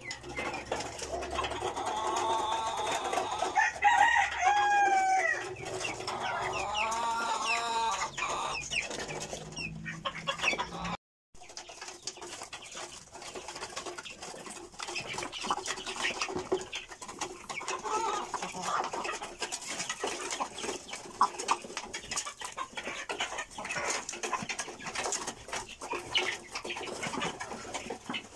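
Chickens clucking and calling while they feed, with many small clicks of pecking at the feed trough. The sound cuts out briefly about eleven seconds in, after which the clicking is denser and the calls fewer.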